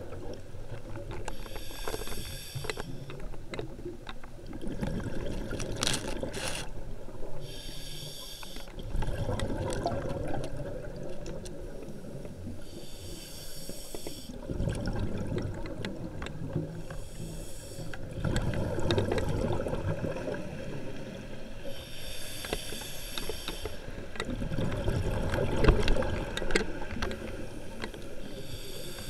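Scuba diver breathing underwater through a regulator: a short hiss alternates with a longer bubbling rumble, the cycle repeating about every five seconds.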